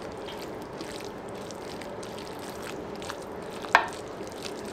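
A spatula quietly spreading a thick minced-meat and tomato mixture across a baking dish, with one sharp knock about three-quarters of the way through.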